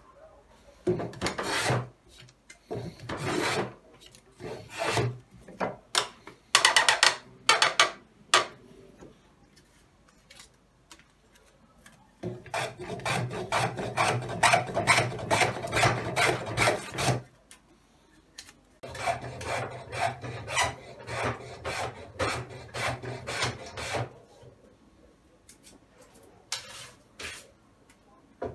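Hand tool scraping wood in back-and-forth strokes: scattered short strokes at first, then two runs of several seconds of quick, even strokes, about four or five a second, with a few more strokes near the end.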